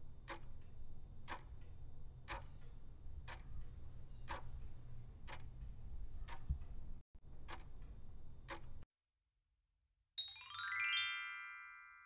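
Countdown timer sound effect ticking about once a second over a low hum, stopping abruptly about nine seconds in. After a short silence, a quick rising chime plays and rings out, the cue that the answer is revealed.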